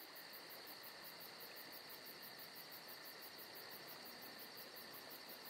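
Faint chorus of crickets: a steady high trilling, with a fast, even pulsing above it.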